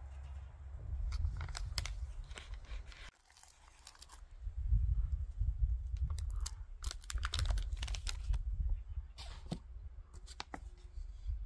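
Wind rumbling on the microphone, dropping away briefly about three seconds in, with scattered light clicks and crackles from a metal spoon tapping as seasoning is sprinkled over raw chicken in a glass bowl.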